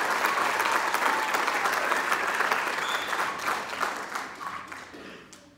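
Theatre audience applauding at the end of a musical number, the clapping thinning out and dying away over the last couple of seconds.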